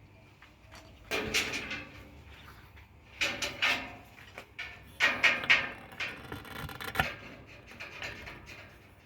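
Three short scraping strokes of metal parts rubbing against each other, then a single sharp click about seven seconds in.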